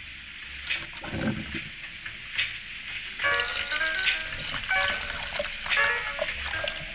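Rustling and soft knocks of a cardboard gift box and paper and plastic packaging being handled, under background music. The music's melody comes in about three seconds in.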